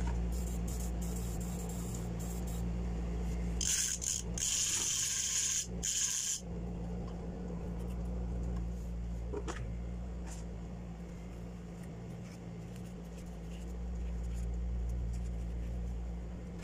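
An aerosol spray can of lubricant-cleaner hissing in three short bursts about four seconds in, spraying fishing-reel parts. Around it, the soft rubbing and light clicks of small metal reel parts being handled and wiped with a cloth.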